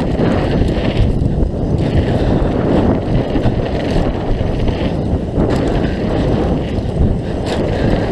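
Wind buffeting the microphone over the rumble of mountain bike tyres rolling fast over a rocky dirt trail, with scattered knocks and rattles from the bike.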